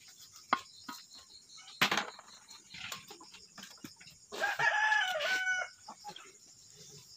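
A rooster crowing once, a single call of about a second and a half, midway through. Before it come light clicks and a short knock, about two seconds in, from a spoon working in an aluminium pot.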